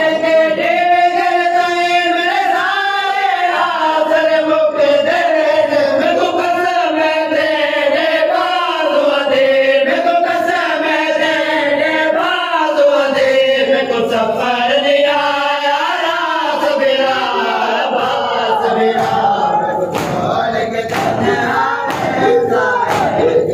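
Men's voices chanting a Shia noha together in a loud mourning lament. Near the end, repeated sharp slaps of matam chest-beating join the chant.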